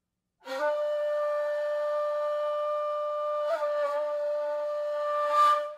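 Intro music: one long held note on a wind instrument, starting about half a second in, with a small wobble in pitch about three and a half seconds in, then fading out near the end.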